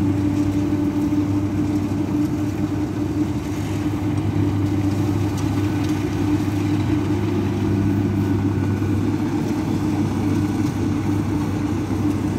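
Kubota DC60 rice combine harvester running at a steady pitch while it cuts ripe rice: a constant engine drone.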